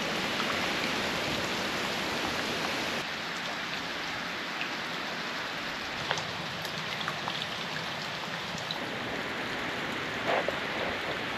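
Steady rain falling, a constant hiss with scattered single drops ticking close by.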